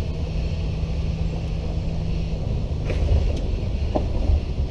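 Jeep CJ7 engine running at low speed, a steady low rumble. A couple of light knocks come about three seconds in, and a short squeak follows near the end.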